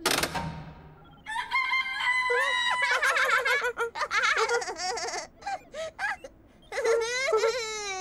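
A sharp clack as the machine's lever is pulled, then a run of silly high-pitched squawking and crowing-like sound effects, first held notes and then wobbling glides. After a short pause, a fast warbling squawk falls in pitch near the end.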